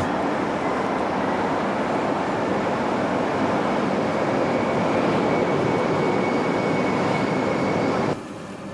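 Shinkansen train running at high speed: a steady rush of rail and wind noise with a faint thin whine in the second half. It drops off abruptly near the end.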